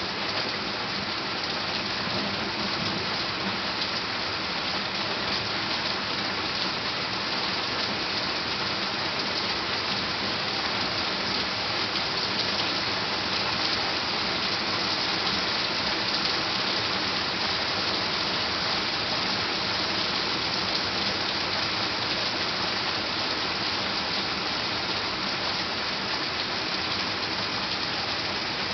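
Heavy rain from a severe thunderstorm pouring down steadily, an even hiss of drops on the ground, rocks and garden.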